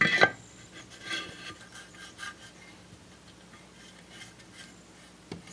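Crankshaft being fitted into a Briggs & Stratton Model 6B's aluminum crankcase: a metal clink at the start, then faint, scattered rubbing and scraping as it is worked into place.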